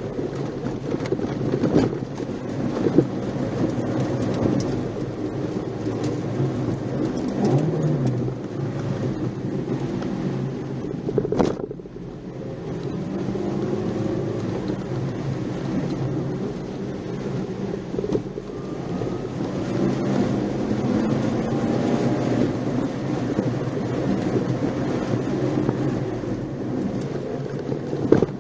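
Nissan March 12SR driving, heard from inside the car: a steady rumble of tyre and road noise with the engine's pitch rising and falling. A single sharp knock sounds about eleven seconds in, after which the noise briefly drops.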